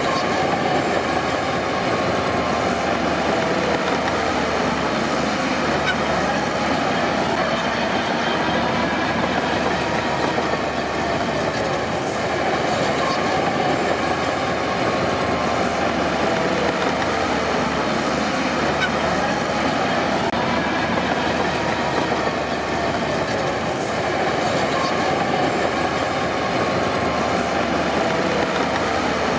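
Crawler bulldozer working: its diesel engine runs steadily under the clank of steel tracks, with a track squeal that slowly wavers in pitch.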